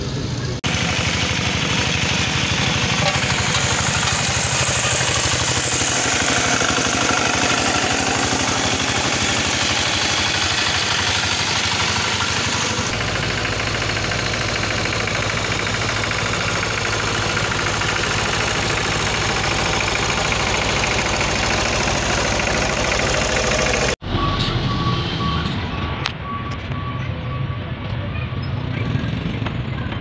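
Road rollers' diesel engines running steadily as they compact a road: a pneumatic-tyred roller on fresh asphalt and a small walk-behind drum roller. The engine sound changes abruptly about a second in, about halfway, and about four-fifths of the way through.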